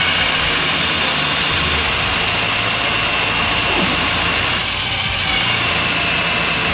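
Handheld power drill running steadily, its bit boring into an aluminum repair weld.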